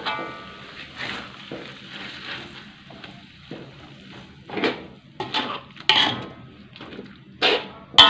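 Metal spatula scraping and knocking against a wok as a thick chili sauce is stir-fried, over a faint frying sizzle. The strikes come irregularly, a few ringing briefly, the loudest near the end.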